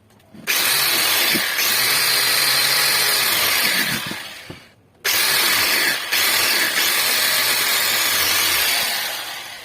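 A power tool running loudly in two long runs, each starting abruptly and fading away at its end, with a short pause between them.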